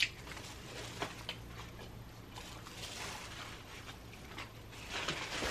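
Faint scattered clicks and small handling and mouth noises of someone eating fried chicken with her fingers, over a low steady hum.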